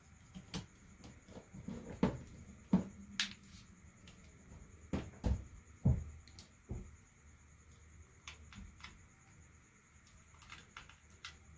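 Irregular light taps and clicks from handling small objects, with the sharpest few about two to three and five to six seconds in.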